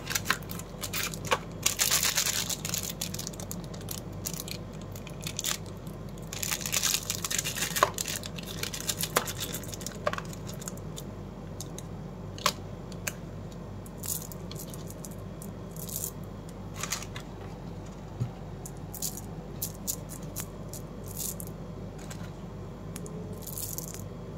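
Plastic candy wrappers crinkling and tearing open in two stretches early on, then sugar-coated chocolate buttons (Cadbury Gems) clicking and rattling against each other as they are poured into a palm, in scattered separate ticks.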